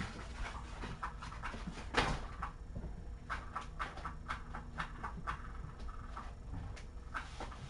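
Kittens moving and playing: irregular light taps and scuffles, with one sharper knock about two seconds in.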